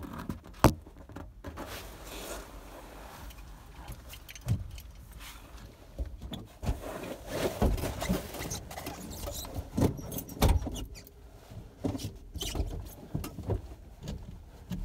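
Irregular clicks and knocks of someone moving about in the driver's seat inside a parked car's cabin.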